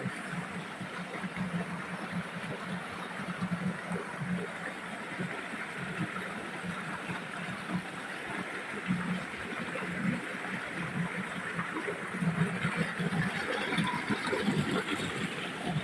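Water running steadily over rocks in a shallow stream.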